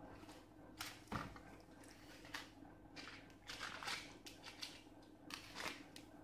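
Silicone spatula spreading cake batter across parchment paper in a baking tray: a few soft scraping strokes with papery rustles, and a dull knock about a second in, over a faint steady hum.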